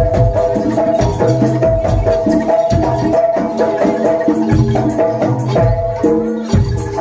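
Live jaranan gamelan music: pitched metal percussion plays a stepping melody over steady low drum strokes.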